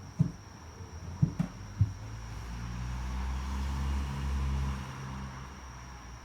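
A vehicle passing by: a low engine hum swells over a couple of seconds and fades away again. A few short low thumps come in the first two seconds.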